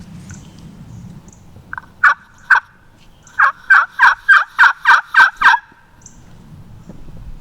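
A series of loud turkey yelps: three spaced notes, then a steady run of eight at about four a second, each note dropping in pitch.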